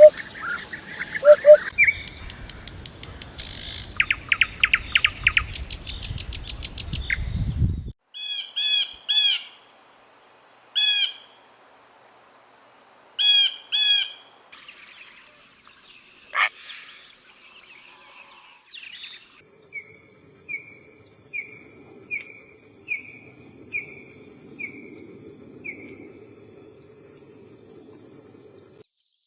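A run of bird calls and songs from several different species, changing abruptly every few seconds: rapid trills, groups of repeated chirps, and near the end a slow series of about ten short, evenly spaced notes.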